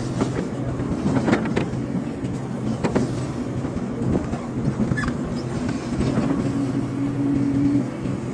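Hydraulic excavator's diesel engine running steadily, with a few sharp metallic clanks and knocks, about one and a half, three and five seconds in.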